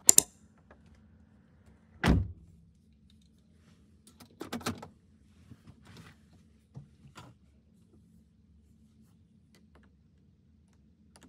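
Handling noises: a sharp click right at the start, a dull thump about two seconds in, then a quick cluster of clicks and a few faint ticks, over a faint low hum.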